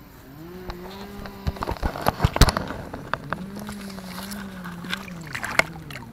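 A two-stroke chainsaw running steadily, its engine note dipping and rising. Sharp splashes and knocks come in a cluster about two seconds in and again near the end as a largemouth bass is let go into shallow water.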